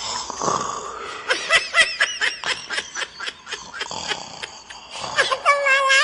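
High-pitched laughter in rapid bursts, about five a second, ending in a longer held, wavering note.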